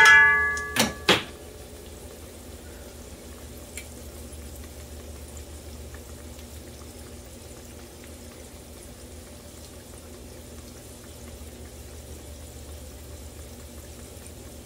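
An empanada deep-frying in hot oil in a pot: a steady, soft sizzle and bubbling. In the first second a metal spoon clinks on the pot with a short ringing tone, followed by two sharp clicks.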